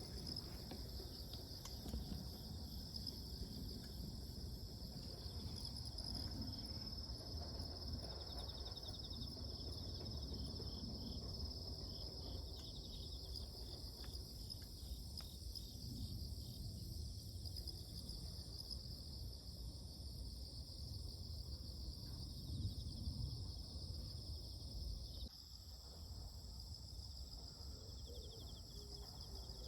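Crickets and other insects singing in chorus: a steady high-pitched trilling, with shorter pulsed trills from other insects coming and going over it.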